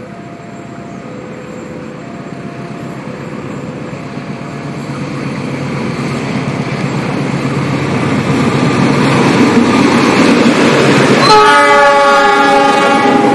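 Diesel locomotive hauling a passenger train, its engine and wheels getting steadily louder as it approaches. About eleven seconds in, the locomotive sounds its horn, a multi-note chord held for about two seconds as the train passes.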